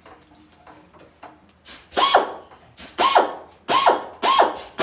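Pneumatic C-ring gun (Kamsin K-SC7C, 15 gauge) firing steel C-rings to clinch chicken wire together. There are four shots, starting a little before two seconds in and then about every second, each a sharp snap with a rush of air. Before the first shot there are a few faint clicks of wire being handled.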